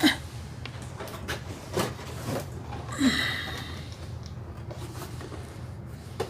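Packaging being handled: scattered taps and knocks, with a short crinkly rustle about three seconds in.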